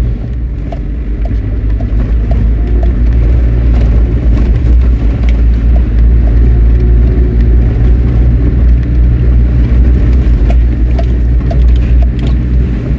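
Land Rover's engine and drivetrain heard from inside the cab while driving, a loud, steady low rumble, with a few light knocks and rattles scattered through it.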